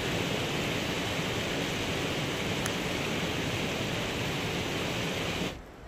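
Steady rush of river water, dropping away shortly before the end.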